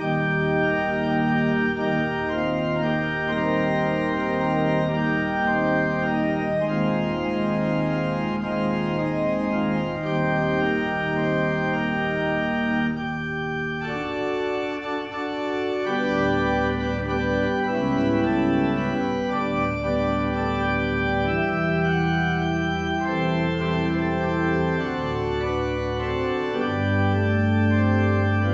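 Church organ playing slow, sustained chords with a moving upper line; about halfway through, deep held bass notes come in strongly underneath.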